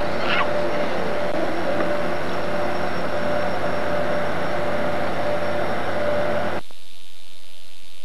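Steady engine drone with a constant hum, cutting off abruptly about six and a half seconds in and leaving a faint hiss.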